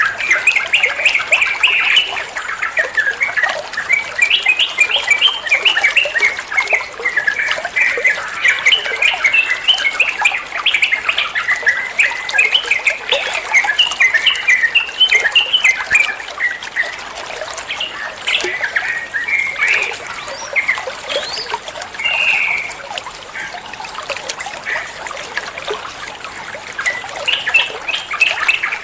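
Yellow-vented bulbul (trucukan) singing in rapid, tumbling strings of chirps, with water trickling steadily underneath. The song thins out for a few seconds late on, then picks up again.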